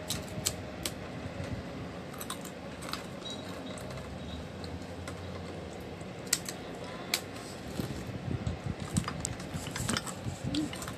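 Crunching on a crispy fried cracker, with sharp irregular crackles as it is bitten and chewed.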